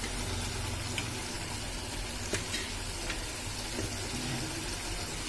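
Chilli paneer gravy frying and sizzling in a steel pan, with a metal spoon giving a few light clicks against the pan as paneer cubes are stirred in.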